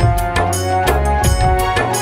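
Instrumental break in a Hindi patriotic folk-style song: drums keep a steady, quick beat with deep strokes under a held melody line, with no singing.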